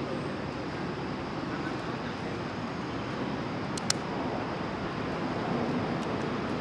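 Steady outdoor background noise with no distinct source, broken by one sharp click about four seconds in.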